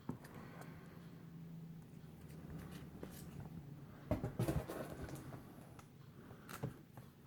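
Faint handling noise: bagged comic books rustling and tapping as they are moved, with a brief louder rustle about four seconds in and another near the end, over a low steady hum.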